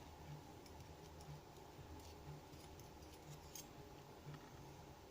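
Near silence: a few faint small clicks of the dimple lock's pins and springs being handled, over a faint low hum that swells about once a second.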